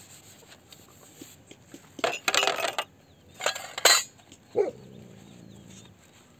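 A cooking pot scrubbed with a soapy cloth in two brief, loud bursts, then a short falling animal cry about four and a half seconds in.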